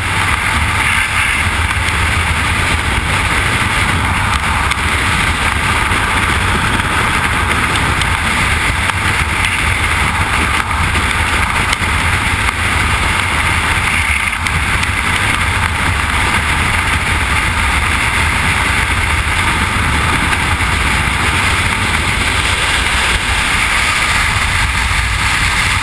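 Steady, loud rush of freefall wind blasting across a skydiver's camera microphone.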